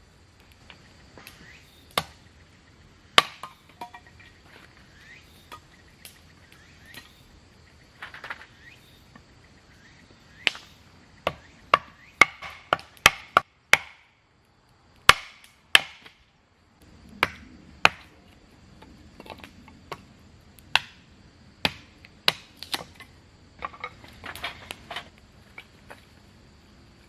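Wood being chopped: a series of sharp, irregular blows, one every second or two, bunched closer together around the middle. A faint, steady, high insect trill runs behind them.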